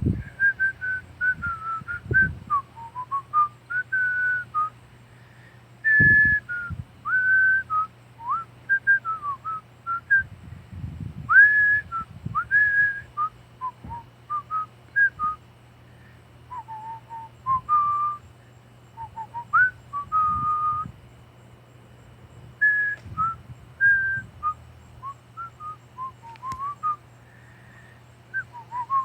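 A person whistling a wandering tune in short phrases, single clear notes sliding up and down, with pauses between phrases. A steady low hum sits underneath, with a few dull low thumps.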